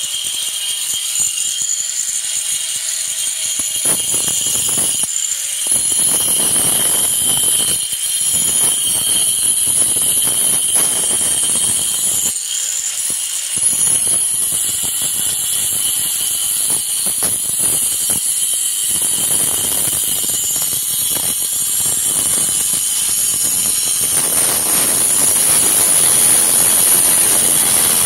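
Angle grinder fitted with a double blade cutting a wiring chase into a brick wall: a steady high motor whine with the gritty grinding of the blades in the brick, which eases off for moments a few times.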